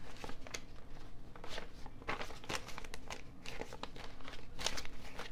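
Paper banknotes being handled and slipped into a plastic cash-binder pouch: a run of short crinkling rustles.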